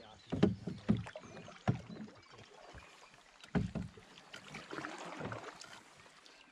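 Paddling a canoe: paddle strokes through the water, with irregular knocks and thumps from the paddle and the canoe's hull, and a brief swish of water about five seconds in.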